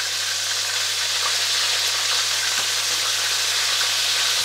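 Floured cod pieces frying in very hot oil in a pan: a steady sizzle with faint crackles.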